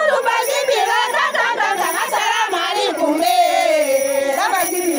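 A group of women singing a traditional song together, one strong woman's voice leading over the others with gliding pitch.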